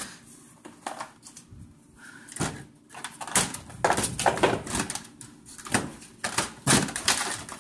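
Irregular clicks, knocks and scraping of plastic engine splash covers and the wheel-well liner being handled and pulled loose by hand.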